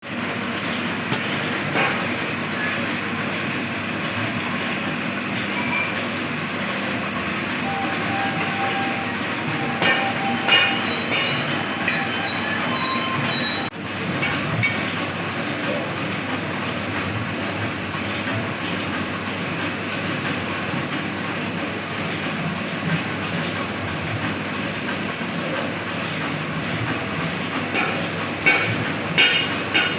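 Metalworking workshop noise: machinery running steadily, with scattered metal clanks and brief high metallic squeals.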